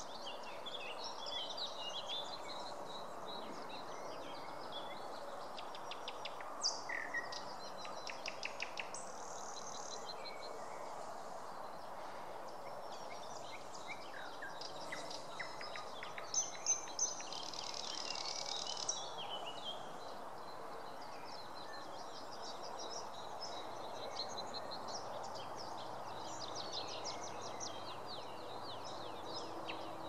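Several songbirds singing in spring woodland: overlapping chirps, trills and whistled phrases, louder around a quarter and again just past halfway, over a steady background rush of noise.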